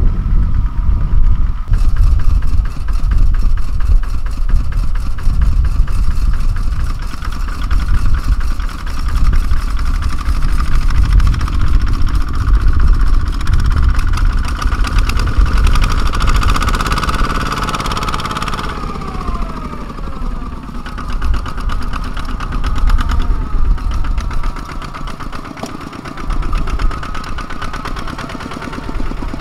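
Single-cylinder diesel engine of a Kubota two-wheel walking tractor chugging with a rapid even beat as it hauls a trailer across a rice field. The pitch falls briefly about two-thirds of the way through.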